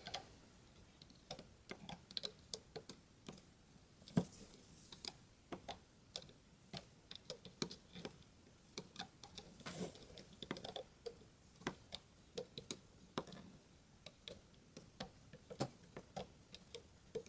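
Irregular light clicks and taps of a plastic hook and fingers working rubber bands on a plastic Rainbow Loom's pegs, as the bands are pulled back and looped forward.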